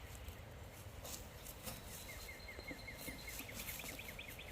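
Wild songbird singing: a quick trill of short, evenly spaced chirps, about five a second, starting about two seconds in and lasting about two seconds, heard faintly.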